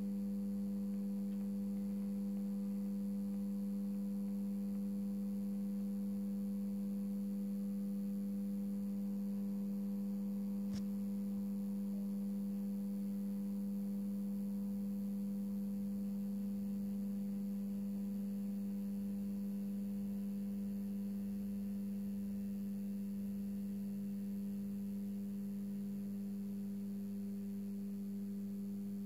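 Steady electrical hum from a 400 W probe-start metal halide lamp and its ballast as the lamp warms up: one strong low tone with a few weaker, higher tones above it. A single faint tick comes about eleven seconds in.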